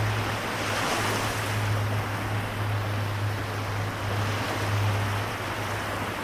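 Small sea waves washing on the shore, one wash swelling about a second in, over a steady low hum.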